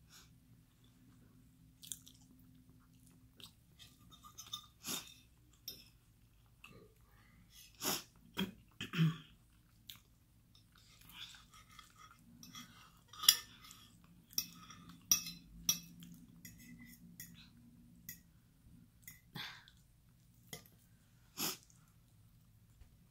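A person chewing soft food (cheese enchiladas and rice) with wet mouth sounds, mixed with scattered sharp clicks and scrapes of a metal fork against the plate. The loudest click comes about halfway through.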